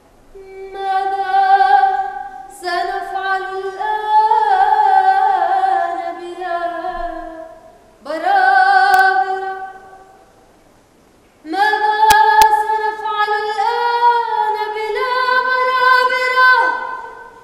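A woman singing unaccompanied: long held notes that step up and down and waver with vibrato, in three phrases with short pauses between them.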